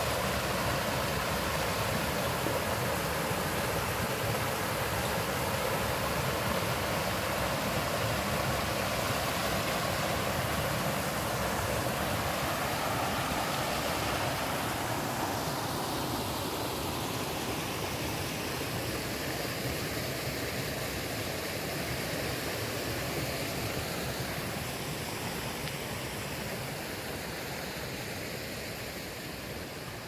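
Valley stream rushing over rocks: a steady wash of water noise that grows gradually fainter over the second half.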